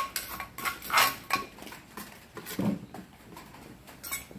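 Metal spoon scraping and clinking against the inside of a clay mortar, scooping freshly pounded papaya salad out onto a plate, in a handful of separate scrapes and knocks.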